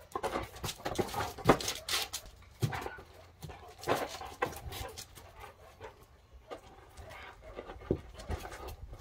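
A mixed-breed dog panting as it plays with a large ball on a concrete floor, with a string of sharp knocks and scrapes from its paws and the ball.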